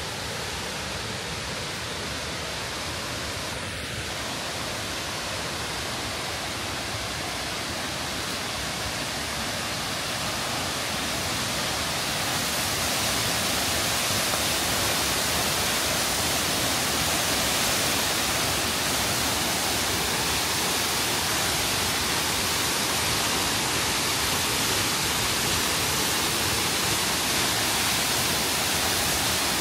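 Steady rush of a large waterfall, about 80 metres high, that gets louder about twelve seconds in.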